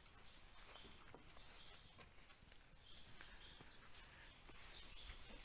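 Near silence: faint outdoor ambience with a few short, faint bird chirps and small clicks.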